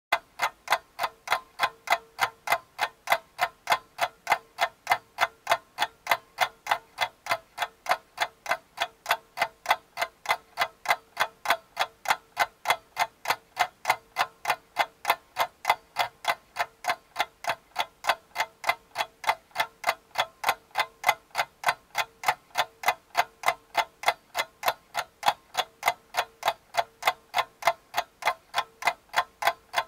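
A steady, clock-like ticking, about three even ticks a second, with a faint steady tone beneath it. It starts abruptly out of silence and runs unchanged across scene changes, so it is an added ticking sound effect rather than live sound.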